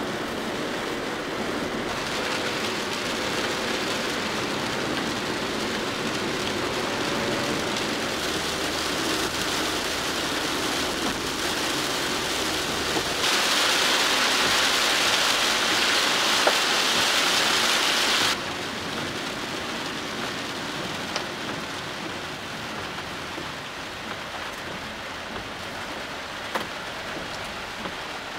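Heavy rain beating on a small kei van's windshield and roof, heard from inside the cabin as the van drives on a wet road. A louder, hissier stretch of rain starts abruptly about 13 seconds in and cuts off about five seconds later.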